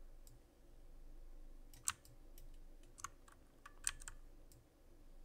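A few single clicks of a computer mouse, spaced about a second apart, over a faint steady electrical hum.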